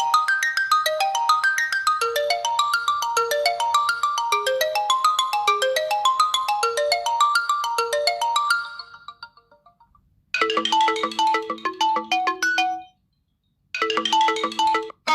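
Infinix Note 7 stock ringtones played one after another. First comes a melody of quick repeating notes that fades out about nine seconds in. After a short gap a second, brief ringtone with a repeating low note stops abruptly, and another begins near the end.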